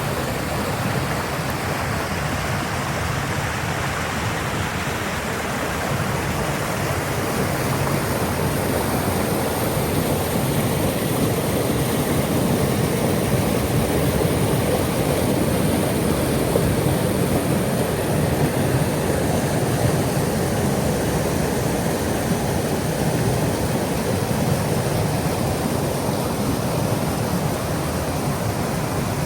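Waterfall: the steady, unbroken noise of falling water.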